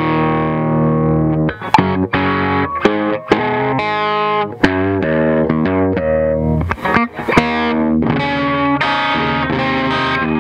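Electric guitar played through a Yamaha DG-60 1x12 combo amp, close-miked at its speaker, during a play test after a service. A chord rings for about a second and a half, then come short chopped chords, a quick run of notes near the middle, and more chords.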